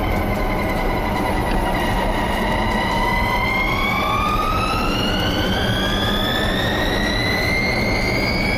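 Lotus Evija electric hypercar's motors whining, several high tones together that dip slightly at first and then climb steadily as the car gathers speed, over a constant rush of road and wind noise.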